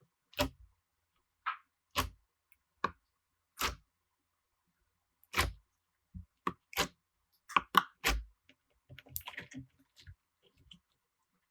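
Slime being handled and pressed, giving a series of separate short sticky pops and clicks at irregular intervals, with a brief crackly patch about nine seconds in.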